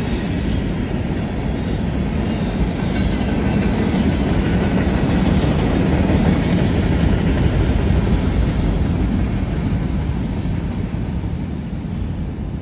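Freight train cars, mostly covered hoppers, rolling past on a curve: a steady rolling noise of steel wheels on rail. Faint high wheel squeal comes in the first few seconds, and the noise eases slightly near the end as the last car goes by.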